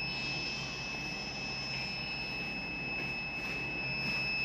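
A steady high-pitched electronic whine with a fainter, higher tone above it, over a low hum and faint background hiss.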